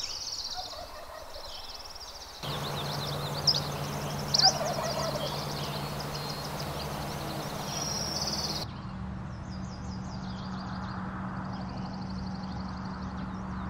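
Wild turkey gobbling, loudest twice a few seconds in, over continual high-pitched songbird chatter.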